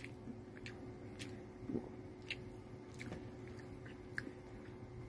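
A person quietly chewing a mouthful of fried chicken sandwich: faint, scattered mouth clicks and smacks over a low steady hum.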